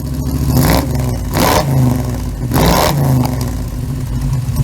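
A 350 small-block Chevy V8 revved three times, dropping back to idle between the blips.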